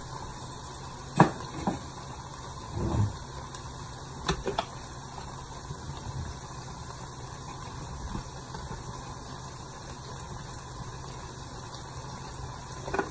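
Kitchen handling sounds: a sharp click about a second in, a dull knock near three seconds, and a quick pair of clicks around four seconds as things are picked up and set down, over a steady low hum.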